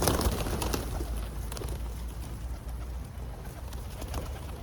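A flock of pigeons at scattered bird feed, with a few sharp clicks in the first second, over a steady low rumble.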